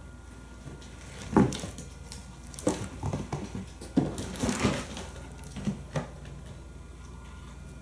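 Kittens playing: irregular thumps and rustles as they jump and scramble on the wooden floor and through a fabric play tunnel, about seven knocks scattered through the first six seconds.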